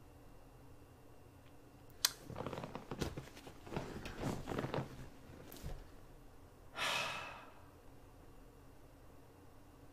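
A person's long exhaled sigh about seven seconds in. Before it come a sharp click about two seconds in and a few seconds of rustling and shifting as he throws himself sideways in his chair.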